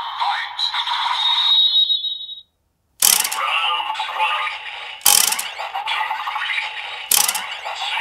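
Electronic voice and music from a Kamen Rider Geats DX Ninja Raise Buckle toy playing through its small speaker, cutting off about two and a half seconds in. After a short silence, a DX Ninja Dueler toy sword's round selector is clicked three times about two seconds apart, each loud click followed by the toy's voice calling out the round over its electronic music.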